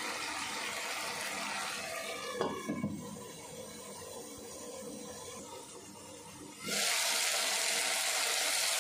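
Potato slices in masala gravy simmering quietly in a pan, with a brief clatter about two and a half seconds in as a glass lid goes on. About seven seconds in, a louder steady sizzling hiss starts suddenly as the potatoes fry in the reduced oil and masala.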